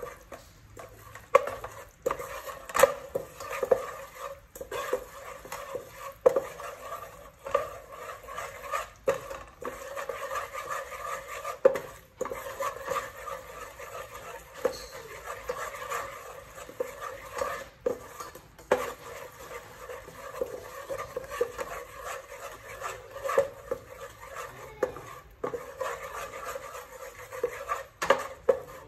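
Wooden spatula stirring and scraping around a metal pot of bubbling liquid, knocking against the pot's sides and bottom at irregular moments.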